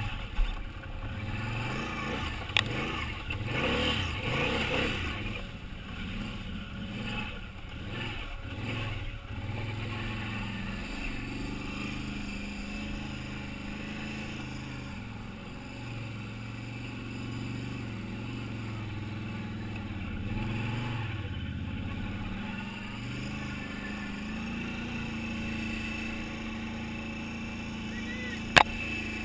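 Can-Am Outlander 800 ATV's V-twin engine running under load, its revs rising and falling. A few sharp knocks come through, the loudest near the end.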